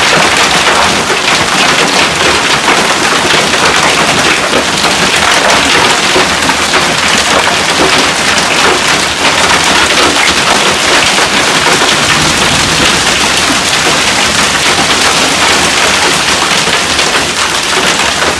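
Heavy hail mixed with rain from a supercell thunderstorm pelting down on cars and the ground: a loud, steady, dense hiss full of tiny impact clicks.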